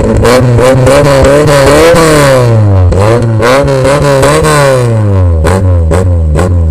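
Modified Maruti Gypsy's petrol engine revved repeatedly through its aftermarket exhaust, the pitch rising and falling with each blip of the throttle. Sharp cracks come in quick succession near the end.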